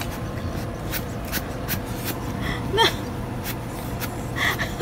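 Steady room hum with scattered small clicks, and one short squeak that rises and falls, about three seconds in.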